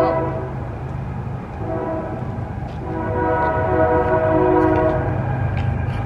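Passing train's locomotive horn sounding in long blasts. One blast fades just after the start, and the horn comes back about a second and a half in, then again from about three seconds in. A steady low rumble from the train runs underneath.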